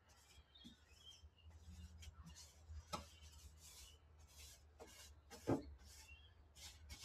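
Paintbrush scrubbing paint onto a bare metal vehicle floor: faint, repeated bristle strokes, a few a second, with two sharper knocks, the louder about two-thirds of the way through.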